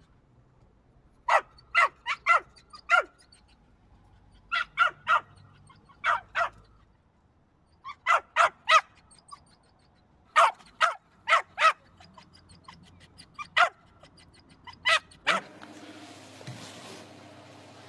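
A puppy yapping at its own reflection in a mirror: short, high-pitched barks in quick clusters of two to five, with pauses between the clusters, stopping about fifteen seconds in.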